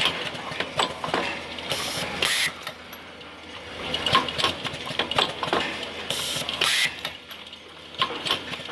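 Automatic Type-C soldering machine running: irregular mechanical clicking and clattering, with two short hissing bursts, about two seconds in and again past six seconds.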